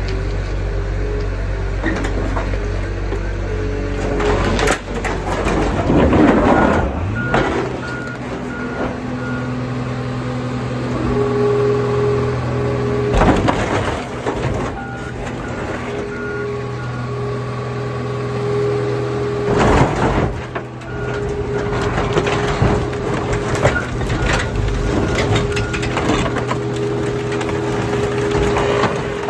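A John Deere 544K wheel loader's diesel engine running, with a reversing alarm beeping on and off at intervals. The sheet metal and glass of a 1981 Ford F-150 crunch loudly several times as the truck is pressed flat by the loader's bucket and the car crusher's lid.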